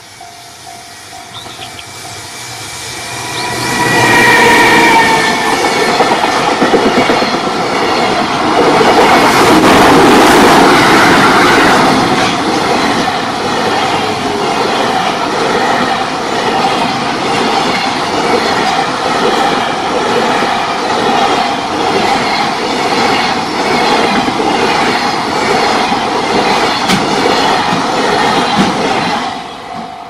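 JR Freight EF210 electric locomotive hauling a long container freight train past at speed. The approach builds to a loud pass about four seconds in, with a tone that falls in pitch as the locomotive goes by. Then the wagons' wheels clack rhythmically over the rail joints until the last wagon passes near the end and the sound drops away.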